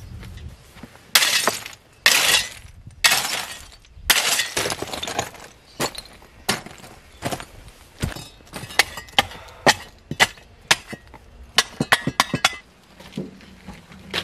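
Broken brick, roof tile and stone rubble being tipped into a timber slab form as hardcore fill, in four loud clattering pours about a second apart. Then comes a long run of sharp clinks and cracks as the pieces knock together while they are trodden into place.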